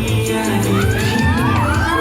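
Loud stage music with a crowd cheering; high shrieks from the audience rise and fall over it from about a second in.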